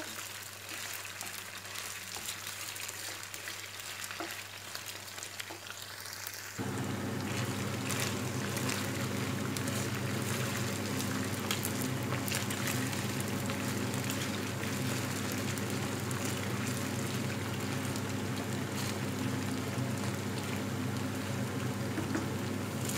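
Chicken breast pieces sizzling and crackling as they fry in oil in a non-stick pan, turned with a wooden spoon. About six seconds in the sizzling gets louder and a steady low hum joins it.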